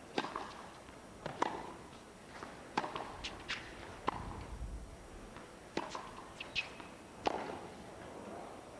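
Tennis ball being struck back and forth by rackets in a baseline rally: sharp pops about every second and a half, with the ball's bounces between them.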